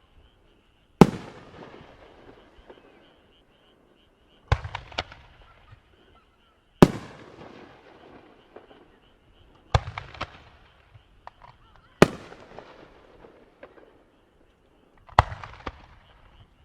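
Fireworks display: aerial shells bursting with six sharp bangs a few seconds apart, some in quick doubles or triples, each trailing off in crackle and echo.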